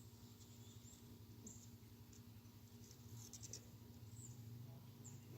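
Near silence: a faint steady low hum, with a few faint short high chirps and a brief cluster of soft clicks about three seconds in.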